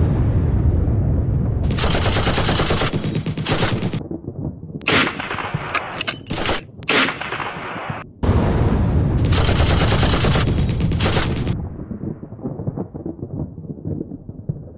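Sound-effect machine-gun fire: a long burst of rapid shots, a few separate single blasts, then a second long rapid burst that tails off into a fading rumble.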